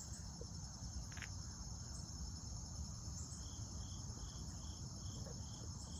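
Steady high-pitched insect chorus trilling without a break. From about halfway through, a softer chirp repeats about two to three times a second, over a low rumble.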